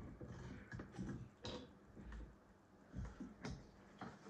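Faint scattered clicks and light knocks as a White Peerless VS1 hand-crank sewing machine is stopped and the stitched cloth is drawn out from under the needle.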